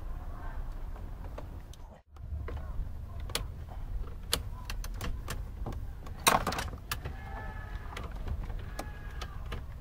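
Scattered clicks, taps and rattles of plastic dashboard trim and wiring being handled and pried as a car's dashboard is taken out, with one louder clack about six seconds in, over a steady low rumble. The sound drops out briefly about two seconds in.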